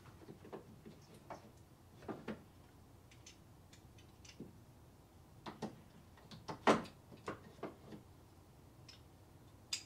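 Scattered clicks and light knocks of metal tools and fittings handled on a workbench while a hex nipple is worked out of a wand trigger valve; the loudest knock comes about two-thirds of the way in.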